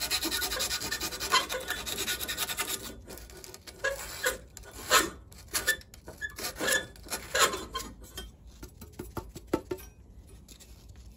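Emery cloth rubbed by hand on the end of a thin-wall steel tube, scraping in quick strokes for about three seconds, then in slower, separate strokes that die away near the end. The steel is being cleaned to bright metal for silver soldering.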